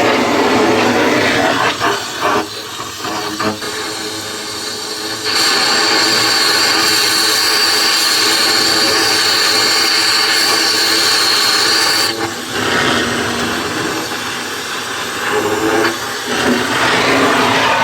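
Gas cutting torch hissing as it cuts into a steam traction engine's boiler tube, slitting the tube so it will collapse inward and release from the tube plate. A brighter, steadier, louder jet cuts in about five seconds in and stops suddenly about seven seconds later.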